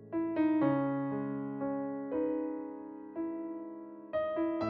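Background piano music: calm notes and chords struck one after another, each ringing and fading away.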